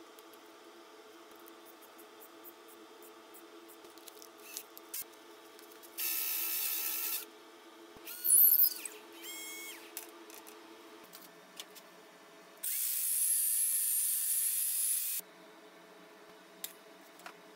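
A power drill runs in short bursts: a run of about a second, a quick spin-up with a rising whine, a shorter run, then a longer run of about two and a half seconds. A steady low hum sits under it.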